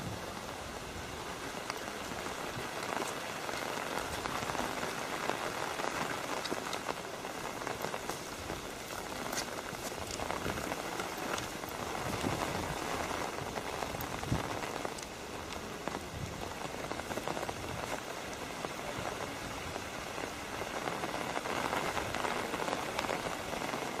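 Steady rain falling, a continuous hiss dotted with small sharp drop ticks.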